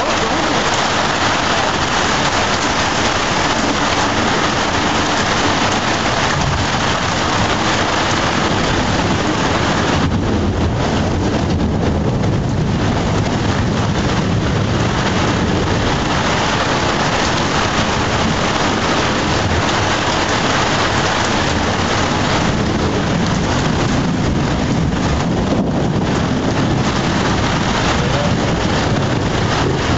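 Heavy rain pouring down steadily during a thunderstorm, an even, unbroken hiss.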